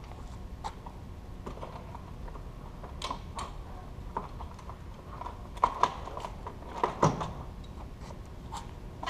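A Warn ProVantage 2500 ATV winch being handled and slid into its mount on the ATV's front: scattered metal clunks and scrapes, the loudest a few sharp knocks about six and seven seconds in.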